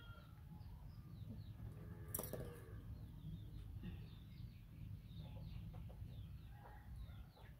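Birds chirping: many short, falling chirps in quick succession, with one sharp click about two seconds in.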